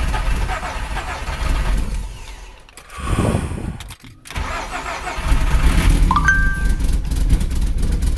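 Swapped-in 07K 2.5-litre inline five-cylinder engine on its first start: it turns over and stumbles, nearly dies about three to four seconds in, then catches and runs steadily and louder from about five seconds.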